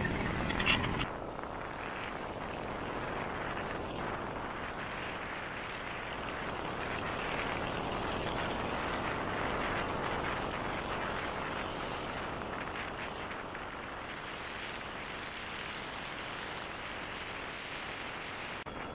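A 500cc 1974 Triumph Trophy motorcycle underway. For about the first second its engine note is plain. After an abrupt change it becomes a steady rush of wind over the microphone mixed with road and engine noise, with no clear engine pitch.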